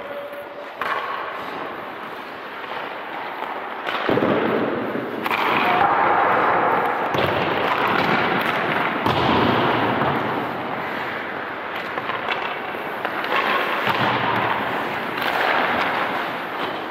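Ice rink sounds during a goalie drill: skates scraping the ice, louder from about four seconds in, with repeated sharp knocks of pucks and sticks.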